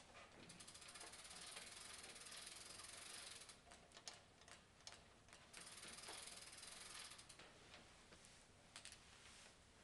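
Coil springs of a sprung leather Lepper Primus saddle clicking and squeaking as a person bounces and shifts on it: two stretches of fast ratchet-like clicking, with single clicks in between.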